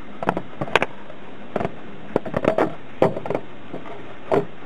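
Hands handling parts and tools under the hood: a string of irregular short clicks, taps and scrapes of hard plastic and metal.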